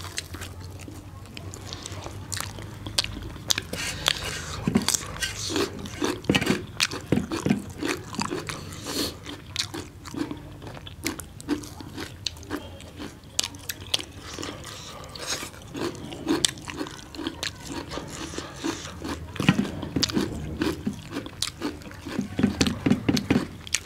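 Close-miked eating sounds of people biting and chewing bhature (puffed fried bread) dipped in chickpea curry, with many irregular sharp mouth clicks and wet chewing throughout.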